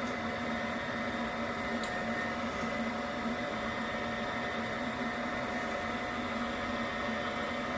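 Steady mechanical hum at a fixed pitch, with a faint tick about two seconds in.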